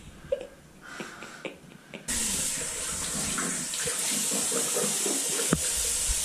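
Water running steadily from a tap, turned on suddenly about two seconds in, with a single click near the end.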